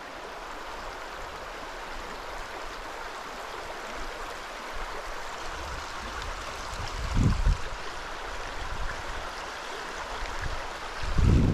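River water rushing steadily over a riffle, an even noise. Two short low thumps come through, about seven seconds in and near the end.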